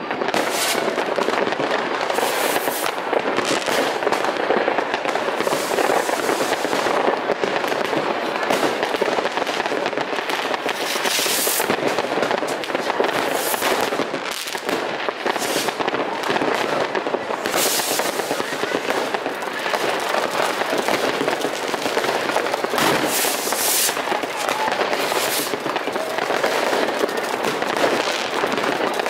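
Many fireworks and firecrackers going off at once: a continuous dense crackle of overlapping bangs and sharp cracks, with no pauses.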